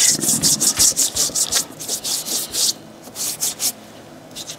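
Small hand brush scrubbing a Puma sneaker's sole and midsole in quick back-and-forth strokes. The strokes break off briefly past halfway, come back for a few strokes, and stop near the end.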